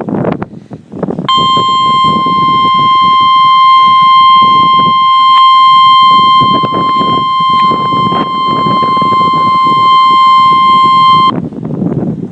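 NOAA Weather Radio 1050 Hz warning alert tone: one steady, single-pitched tone held for about ten seconds. It starts about a second in and cuts off suddenly near the end. It signals that a warning, here a tornado warning, is about to be broadcast. A low noise runs underneath it.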